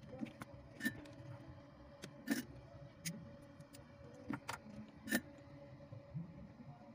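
Irregular sharp clicks and taps of 18650 lithium-ion battery cells being handled and pressed together into a pack, about five distinct clicks, over a faint steady hum.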